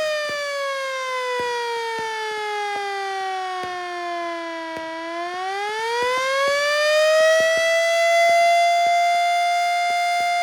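1980 Yahagi S-10 motor-driven siren, powered by a single-phase 220 V 2 hp electric motor, sounding one steady tone. Its pitch falls slowly for about five seconds, then rises back within about two and a half seconds and holds steady.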